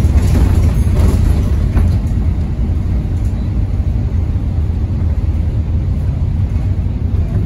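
Diesel engine and running gear of single-deck bus 66770 (YJ05 VVO) running steadily, heard from inside the passenger saloon as a deep, even rumble.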